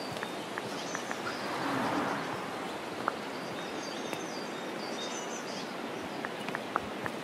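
Outdoor ambience: a steady hiss of background noise with small birds chirping now and then, and a few light ticks scattered through it. About two seconds in, the noise briefly swells.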